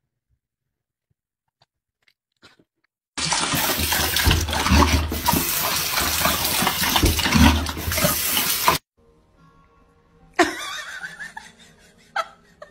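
Bathroom faucet running hard into a sink, water splashing as a dog drinks from the stream, with a few low thuds. It starts about three seconds in and stops abruptly about six seconds later.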